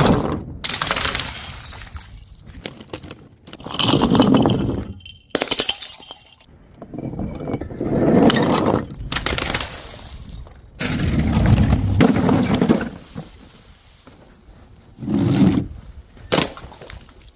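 Glass bottles shattering, several crashes a few seconds apart with the tinkle of falling shards between them.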